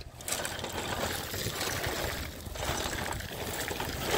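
Loose gravel crunching and rattling as a plastic Bruder toy truck is pushed over it on its wheels: a steady, grainy noise that dips briefly a couple of times.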